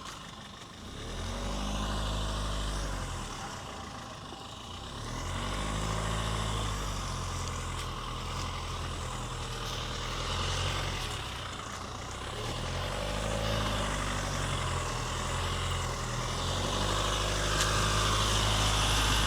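Rely R8 pickup truck's engine pulling on a drive, its revs rising and easing off several times, over steady road noise.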